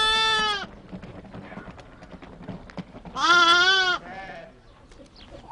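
A lamb bleating twice: a short call right at the start and a longer, wavering one about three seconds in.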